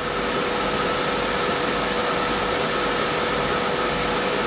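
Steady mechanical background hum with rushing air noise and a constant pitched tone, unchanging throughout.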